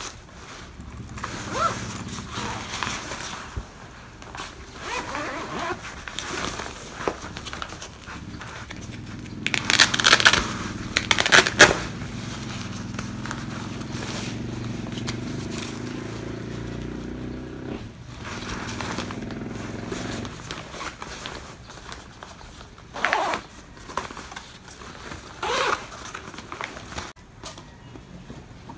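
Fabric handling: a padded laptop sleeve and a nonwoven tote bag rustling and crinkling. A zipper is run open in a loud stretch about ten seconds in, and a couple of short scrapes come near the end.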